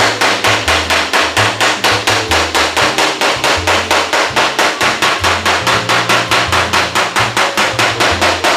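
Body hammer tapping on a Chevelle's welded sheet-metal body panel in quick, even, firm little taps, about five a second, knocking down a high spot raised by the welding and panel fit-up.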